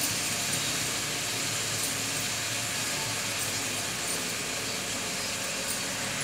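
Steady hiss of cauliflower pieces frying in a steel pan on a gas burner, with a low hum underneath.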